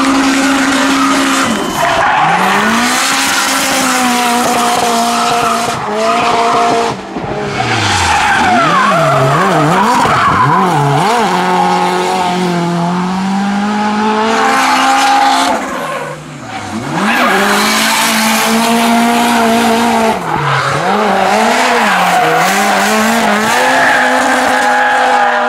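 Drift cars powersliding with tyres skidding and squealing, engines revving hard. The engine note swings quickly up and down as the throttle is worked, with two short dips in level where the throttle is lifted.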